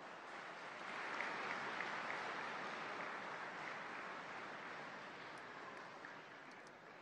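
Audience applauding, the clapping swelling about a second in and slowly fading toward the end.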